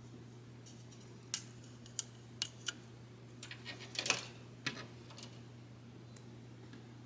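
Small plastic model-kit parts clicking and tapping as they are handled and pressed together, in scattered sharp clicks with a quick flurry about four seconds in, over a steady low hum.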